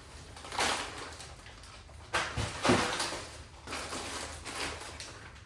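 Shopping bags being handled and set down: rustling with a couple of dull knocks, in several short bursts.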